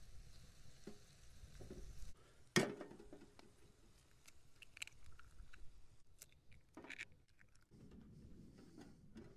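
Scattered clicks and knocks of small objects being handled and set down, with one sharp knock about two and a half seconds in, over a low rumble.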